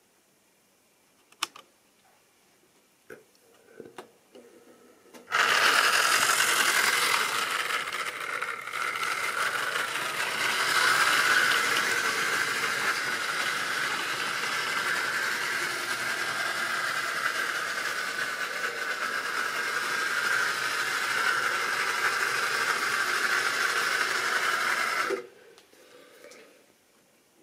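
Model railway goods train running past close by, its electric motor and wheels on the track making a steady mechanical whirr and rattle. It starts suddenly about five seconds in, after a few faint clicks, and cuts off abruptly near the end.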